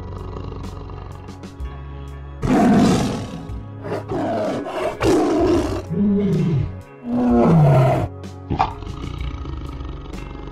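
Tiger roaring: a run of about five loud roars from about two and a half to eight seconds in, the last ones falling in pitch, over background music.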